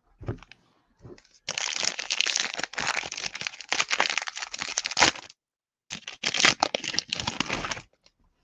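Foil wrapper of a trading card pack crinkling loudly as hands open and handle it, in two stretches of a few seconds with a short pause between.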